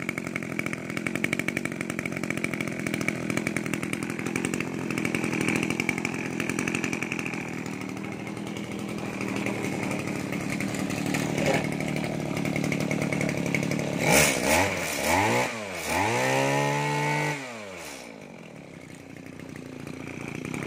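Robin NB19-2 brush cutter's two-stroke engine running, which the seller calls very strong. About two-thirds through it is revved up and down three times, then drops back to a steady idle.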